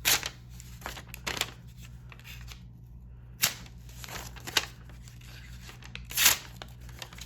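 Freshly sharpened multitool knife blade making test cuts through a material, several short, sharp slicing strokes spaced a second or more apart, to check the new edge.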